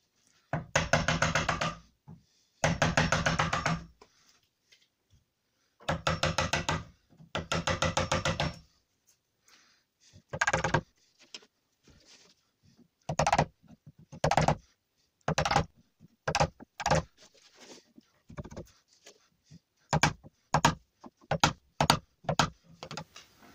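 Hand chisel paring out the recess for a door latch striking plate in a poplar door jamb, scraping across the wood. There are four longer strokes of a second or more in the first half, then a run of short, quick strokes.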